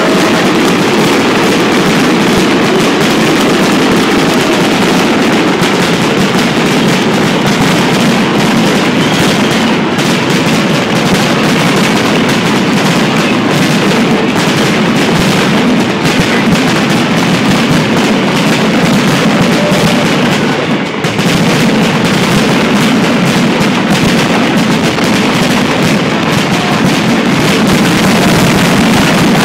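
Fireworks finale barrage: shells bursting in rapid, overlapping succession into a dense, continuous wall of booms and crackle. It is very loud, with only a momentary dip about two-thirds of the way through.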